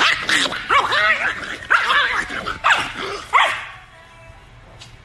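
Small white chihuahua barking and yapping angrily: about six short yelps that rise and fall in pitch over the first three and a half seconds.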